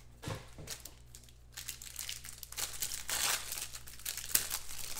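Foil wrapper of a Panini Threads trading-card pack crinkling and tearing as it is opened and the cards are pulled out, in irregular bursts that are loudest around three seconds in.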